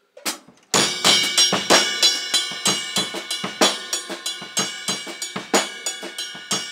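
Acoustic drum kit played in a triplet-feel shuffle groove: bass drum, snare and ringing cymbals, coming in about three-quarters of a second in after a single light tap.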